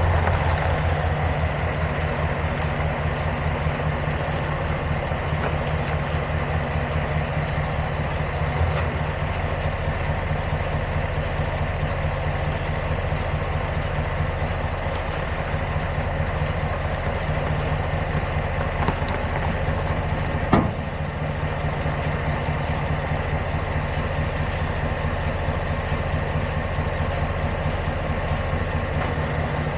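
Vehicle engine idling steadily, with a few sharp pops, the loudest about two-thirds of the way through: the popping noise whose source is being hunted.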